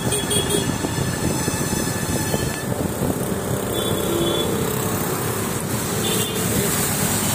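Muddy floodwater rushing across a road: a steady, dense rushing noise.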